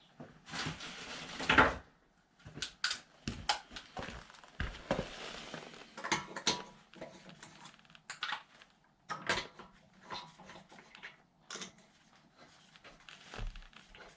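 Irregular clinks and knocks of wheel-change work: wheel nuts and hand tools being handled around a car wheel, with a louder knock about a second and a half in.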